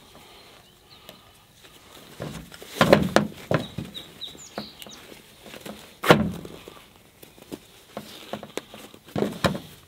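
Steel ratcheting wrenches in a rolled-up fabric pouch being handled and tied up: several sharp knocks and clinks, loudest about three and six seconds in, with fabric and strap rustling between them.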